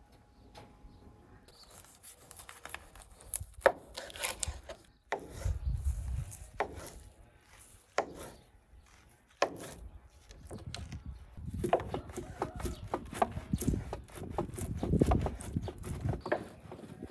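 Knife slicing a boiled sausage on a wooden cutting board, the blade knocking the board about every second and a half. Then a block of cheese scraped up and down a stainless steel box grater, a dense rasping.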